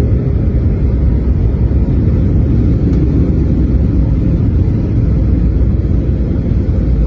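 Steady, loud low rumble of a jet airliner heard from inside the cabin during the landing roll, with the engine's thrust reverser deployed.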